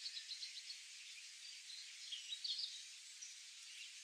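Birds chirping and calling over a steady high background hiss of riverside nature ambience: a run of quick short chirps at the start and a rising-and-falling whistled call a little past halfway.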